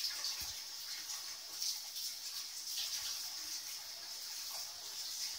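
Soft scuffling of twenty-day-old puppies' paws on a rug, with faint scattered clicks, over a steady high hiss.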